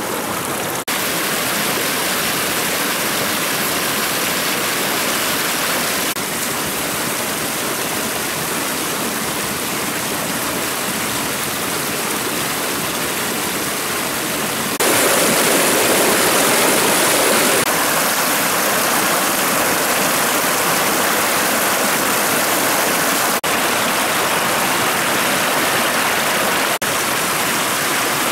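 Forest stream rushing over rocks: a steady hiss of flowing water that steps abruptly louder or softer several times, loudest a little past the middle.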